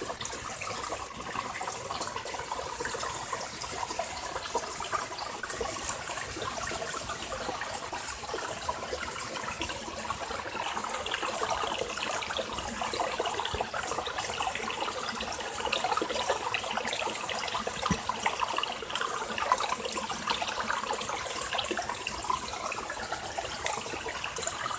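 Water running and splashing over rocks in a ravine stream, a steady bubbling, trickling flow.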